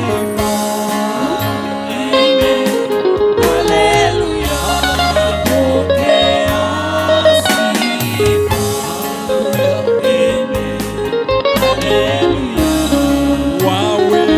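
Gospel praise-and-worship music played live by a church band: voices singing a melody over guitar and a steady bass line.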